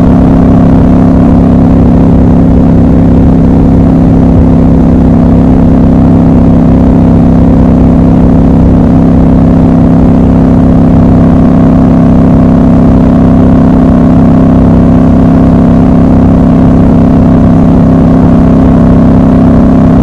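Triumph Scrambler motorcycle engine running at a steady highway cruise, its note holding one even pitch with no revving or gear changes.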